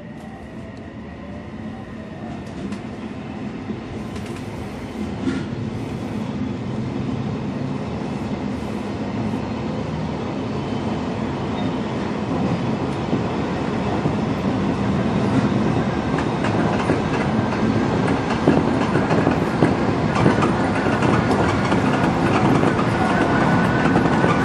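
Odakyu electric commuter train pulling away from a station and accelerating, heard from inside the leading car. The motor whine rises in pitch at first, and the running noise of wheels on rail grows steadily louder, with some clickety-clack.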